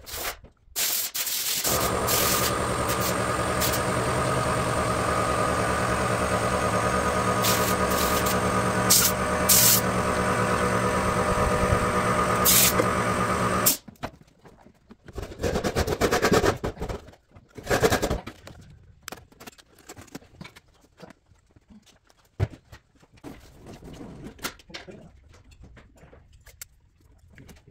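VW 1300 Beetle's air-cooled flat-four engine runs steadily for about twelve seconds, then stops abruptly. After that come irregular clunks and rustling as the air cleaner is lifted off and parts are handled in the engine bay.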